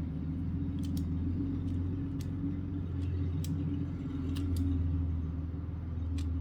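Scattered short, sharp clicks of a 3x3 Rubik's cube's layers being turned during a solve, over a steady low hum.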